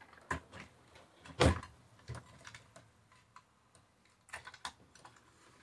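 Scattered clicks and knocks of hands handling a plastic ceiling light fixture and its wired electrical box, with one louder knock about a second and a half in.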